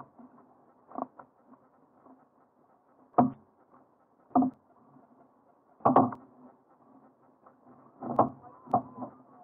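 Six sharp knocks and creaks on a fishing kayak, irregularly spaced a second or so apart.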